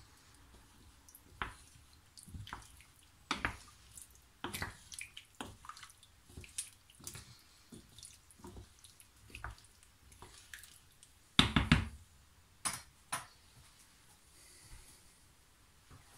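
Wooden spoon stirring a chunky stew of root vegetables and lamb in broth in a large pan: irregular wet clacks and sloshes, with a few louder knocks a little past halfway.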